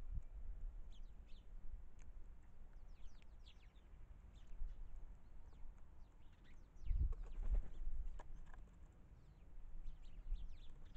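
Wild birds chirping with many short, high, falling calls over a steady low rumble, with a cluster of low knocks about seven seconds in.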